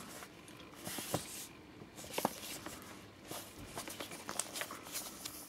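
Faint rustling of a worn paper booklet being handled, with a few soft scattered clicks.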